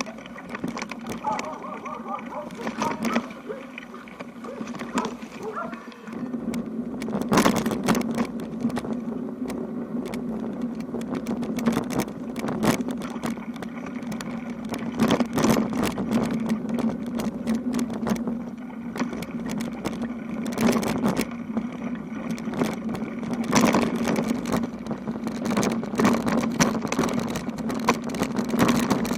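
Touring bicycle being ridden over a rough road: a steady hum with frequent rattles and knocks, which become more frequent about a quarter of the way in.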